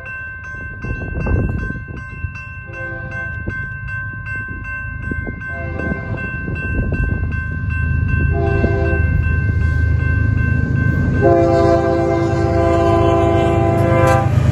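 BNSF diesel freight locomotives sounding a multi-chime air horn as they approach a grade crossing: three short blasts, then a long blast starting about 11 seconds in. Under the horn, the crossing's warning bell rings steadily about three times a second. The low rumble of the locomotives grows louder as the train nears.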